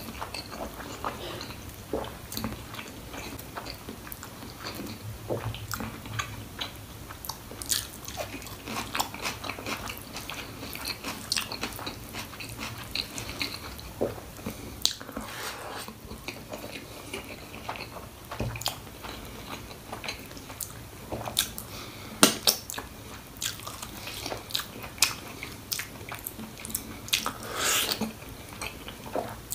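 Close-up mouth sounds of a person eating goat trotters (mutton paya) with rice: chewing and biting, with many short, irregular clicks and small crunches.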